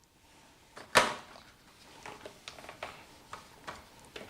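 A single sharp knock about a second in, followed by faint, irregular small clicks and taps.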